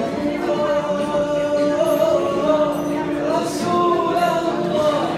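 A man singing into a microphone, amplified over loudspeakers, in long held notes that waver and bend in pitch.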